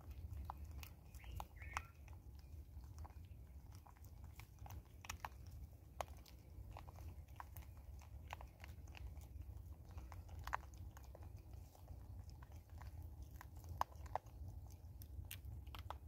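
Vervet monkeys chewing dry birdseed and maize kernels close to the microphone. Irregular sharp crunches and clicks sound over a low steady hum.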